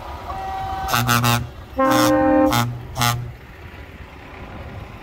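Truck air horn sounding a string of blasts: three quick toots, a longer blast about two seconds in, then two more short toots, over the low rumble of passing trucks.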